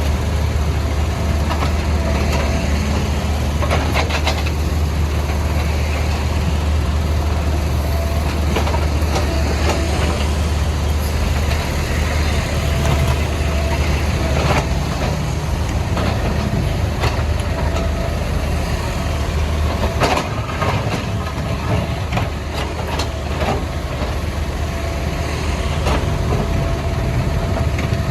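Caterpillar backhoe loader's diesel engine running steadily under work, with scattered knocks and clatter from the bucket breaking up road surface.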